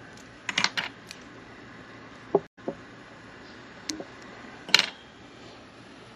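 Small clicks and taps of fly-tying tools and bobbin being handled and set down: a quick cluster under a second in, a few single knocks in the middle, and a louder cluster near the end, with a momentary dropout of all sound in the middle.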